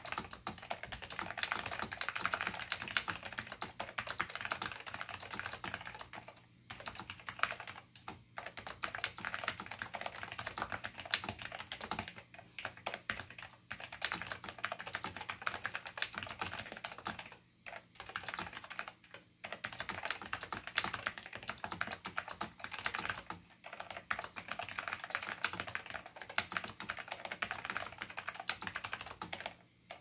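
Fast, continuous typing on a NeXT non-ADB keyboard with lubed Alps SKCM Black linear switches and Alps keycaps. The keystrokes make a dense clatter, broken by a few short pauses.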